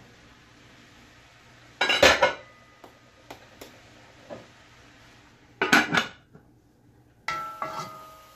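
Aluminium cookware clattering: an aluminium pot lid and a wooden spoon knocking against a large aluminium pot. There are three loud clanks, about two, five and a half, and seven seconds in, with a few light knocks between; the last clank rings on briefly.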